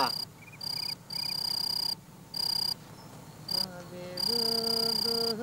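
Crickets trilling in on-and-off stretches, each lasting about half a second to a second. From about three and a half seconds in, a steady held pitched note joins them.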